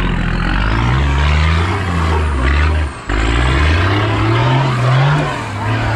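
Toyota LandCruiser 80 Series engine revving in surges under load as the four-wheel drive climbs a rock step, its pitch climbing and falling twice, with a brief break in the sound about halfway through.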